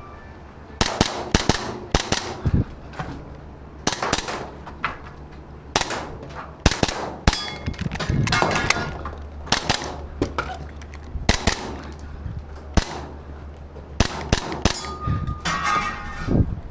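Gas airsoft Glock 34 pistol fired in quick strings of pairs during a timed IPSC stage run, each shot a sharp crack, with metallic clangs from BBs hitting targets.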